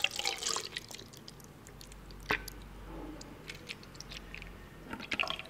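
Milky matcha drink poured from a bottle into a glass jar: a splashy pour loudest in the first second, then quieter, with a few light clicks of bottle and glass.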